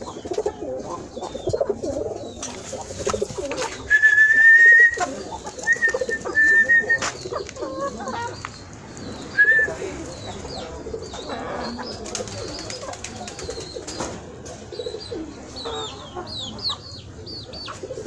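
Free-range kienyeji chickens clucking and murmuring continuously in low calls. A loud high, steady whistle-like call sounds about four seconds in, with shorter ones around six and nine seconds, and short high chirps come near the end.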